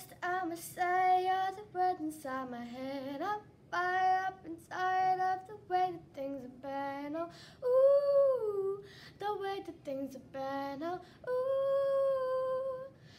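A young girl singing a pop song unaccompanied, in short phrases, with a long held note near the end.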